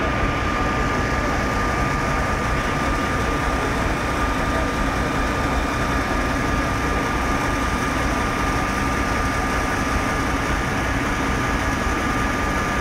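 Fire engines' engines running steadily, with a steady high tone over a dense mechanical din.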